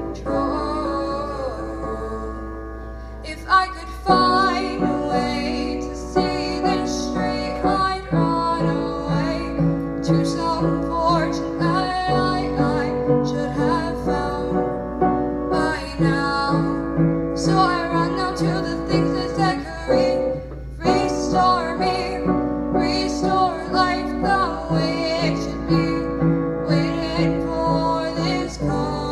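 A woman singing a song to piano accompaniment, the chords struck in a regular pulse. The accompaniment thins out briefly about three seconds in, then comes back.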